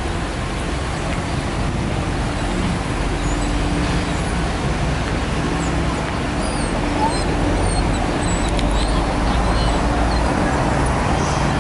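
Steady city street traffic noise: the rumble and hum of passing cars and buses, with a few faint high chirps in the second half.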